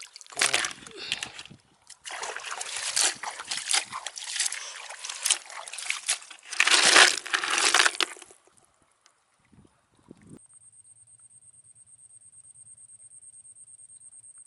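Shallow water sloshing and splashing in irregular bursts for about eight seconds, then stopping. After a short pause, a faint steady high tone with a low pulsing hum sets in.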